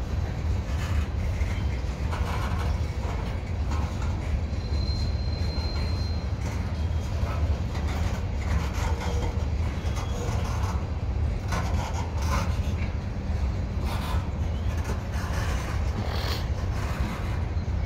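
Slow-rolling freight train of covered hopper cars and tank cars passing close by: a steady low rumble of wheels on rail, with scattered clicks and clanks. A brief thin high tone sounds about five seconds in.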